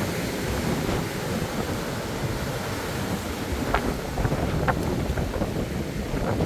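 Strong wind buffeting the microphone over the steady wash of ocean surf breaking on the shore. A couple of short clicks sound near the middle.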